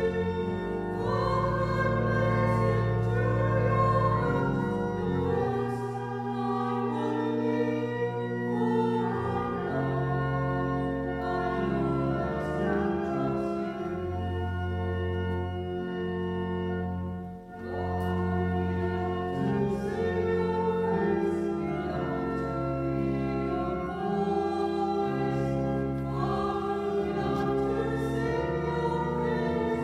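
A small choir of women's voices singing with organ accompaniment, held organ chords under the sung line, with a short breath between phrases a little past halfway.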